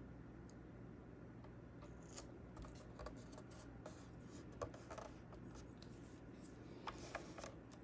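Faint scratching and scattered small ticks of hands smoothing a vinyl decal wrap down onto a plastic charger case, over a low steady room hum.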